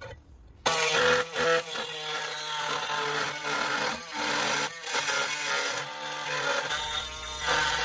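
Air-powered reciprocating saw running and cutting through a thin steel brake dust shield, a loud buzzing whine that starts under a second in and breaks off briefly a few times.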